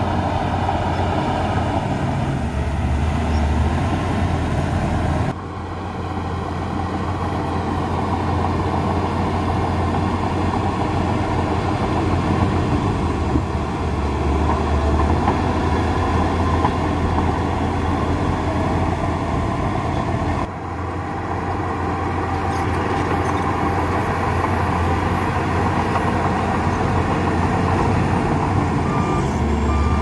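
Heavy diesel earthmoving machinery, bulldozers and dump trucks, running with a steady low engine drone. The sound breaks off abruptly and resumes twice, about five seconds in and about twenty seconds in.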